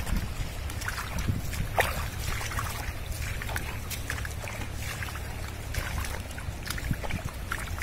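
Wind rumbling on the microphone over the steady rush of a swollen, fast-flowing flood river, with scattered short clicks.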